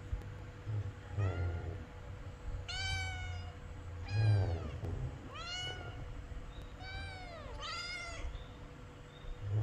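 A domestic cat meowing repeatedly: about six separate meows, each rising then falling in pitch, the loudest about four seconds in. A low rumble comes and goes underneath.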